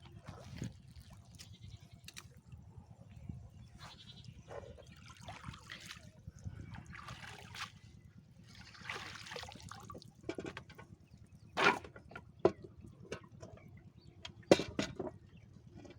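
River water splashing and dripping as a fishing net is worked in the water, with a few louder splashes in the second half.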